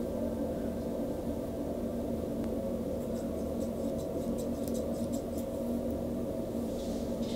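Hair-cutting scissors snipping through a section of hair: a quick run of about ten crisp snips a few seconds in, over a steady low hum.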